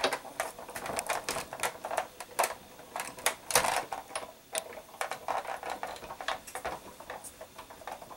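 Manual embossing machine being cranked, the plate and embossing-folder sandwich running through its rollers with a steady run of irregular clicks and knocks, several a second.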